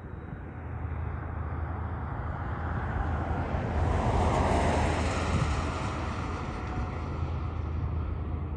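A vehicle going by: a whooshing swell that builds to its loudest about four to five seconds in and then fades, over a steady low engine rumble.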